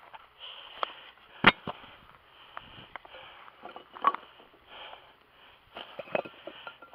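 Handling noise with a few sharp knocks, the loudest about a second and a half in and another near four seconds, between soft sniffs and breaths close to the microphone.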